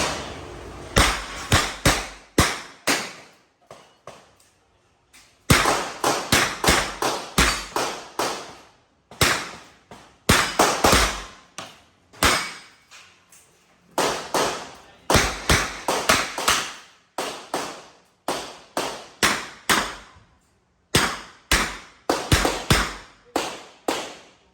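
Handgun shots fired in quick pairs and fast strings during a practical-shooting stage run, with short pauses between groups of shots. Each shot is sharp and dies away briefly.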